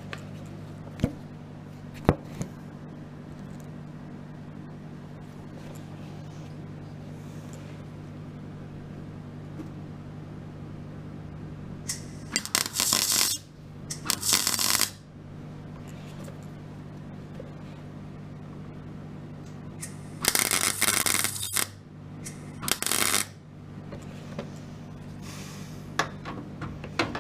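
MIG welder tack-welding a steel repair patch into a car's rear wheel arch on a low setting (2 of 6): four short bursts of crackling arc, two close together about halfway through and two more some seconds later. Under them runs a steady low hum, with two sharp clicks in the first couple of seconds.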